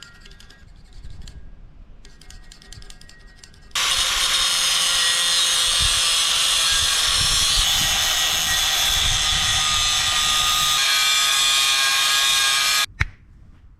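Angle grinder cutting a slot in a pipe: after a few seconds of light scraping, the grinder runs at full speed with a steady, high whine for about nine seconds, then cuts off suddenly near the end.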